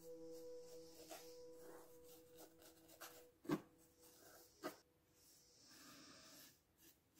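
Faint brushing of a paintbrush working a wash over a textured model surface, with two light knocks in the middle. A held background music tone fades out underneath during the first half.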